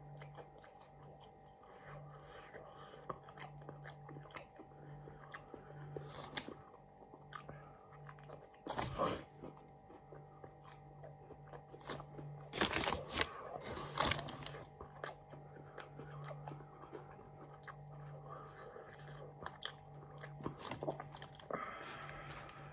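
Close-up chewing of fried fish and chips: soft crunches and wet mouth sounds, with a few louder crunches around the middle. A faint steady hum runs underneath.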